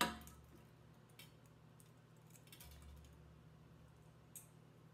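Small clicks and light metallic ticks of wire and a small metal binder clip being handled while wire is wrapped around an agate slice: one sharp click at the very start, then a few faint ones.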